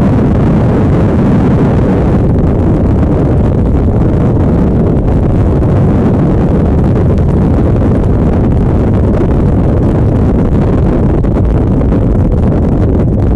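Freefall air rushing past a skydiver's camera, heard as loud, steady wind buffeting on the microphone, mostly a deep rumble with no let-up.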